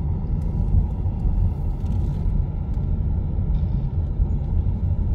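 Steady low rumble of a car being driven, heard from inside the cabin: engine and road noise with no sharp events.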